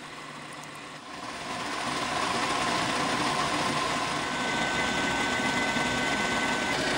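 Bridgeport vertical milling machine spindle running, then the milling cutter bites into the steel bar about a second in and takes a steady facing cut, with chips flying. A steady high tone joins partway through the cut.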